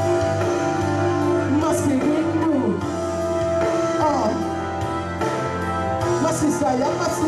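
Live band music: sustained chords with a melody line that bends and wavers over them.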